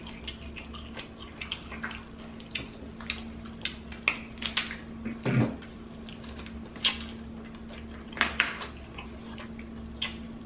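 Seafood being eaten by hand: irregular sharp cracks and clicks of crab shells being broken and picked apart, with wet chewing and smacking.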